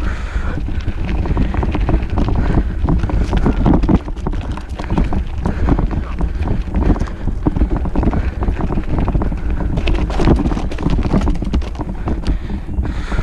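Wind buffeting a GoPro Hero 5 Session's microphone as a bike is ridden along a rough dirt trail, with a constant low rumble and many small knocks and rattles from the bike over bumps.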